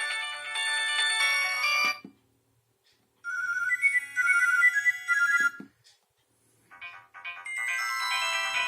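Nokia mobile phone ringtones played one after another: a polyphonic tune cuts off about two seconds in, a second tune with a repeating high note pattern plays briefly after a short gap, and a third starts near the end.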